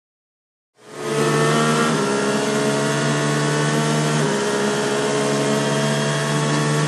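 Race car engine running hard, starting abruptly about a second in and holding a steady high note, with its pitch shifting twice as if through gear changes.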